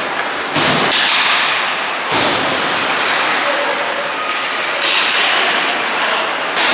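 Ice hockey play in an echoing rink: skates scraping and stopping on the ice, with thuds of the puck and sticks. Bursts of scraping start sharply about half a second, two, five and six and a half seconds in.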